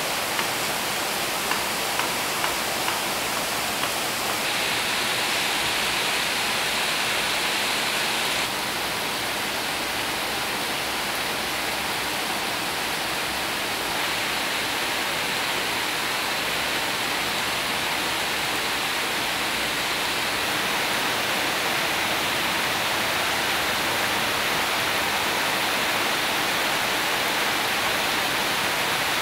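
Heavy rain pouring steadily: a dense, even hiss, with a few sharp drip ticks in the first few seconds. Its tone shifts abruptly a few times.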